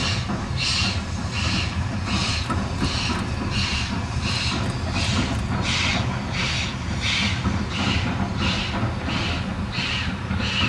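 Steam locomotive hauling a train across a bridge, its exhaust beating evenly at about two chuffs a second over a low rumble.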